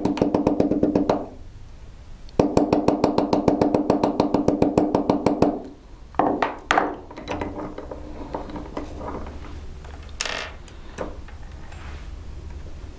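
Rapid, even tapping of a small hammer on a steel bezel setting punch, about seven or eight taps a second, in two runs with a pause about a second in, as the punch burnishes a silver bezel cup's wall down over its set stone. After about six seconds the tapping stops, leaving a few scattered clicks and knocks.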